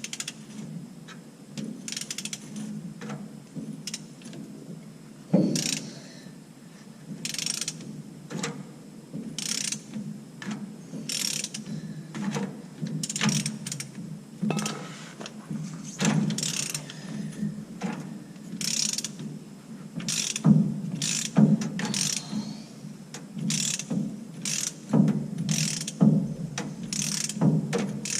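Hand ratchet and socket clicking in repeated short strokes, backing the fine-threaded nut off the pickup's rear differential pinion so the pinion seal can come out.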